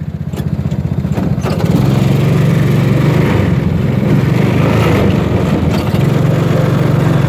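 A small vehicle engine running with a steady pulse, getting louder about a second and a half in.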